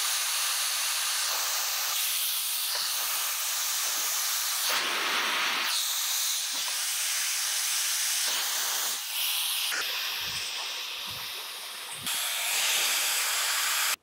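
Laifen Swift hair dryer blowing air through hair wound on a round brush: a steady rushing hiss whose tone changes now and then.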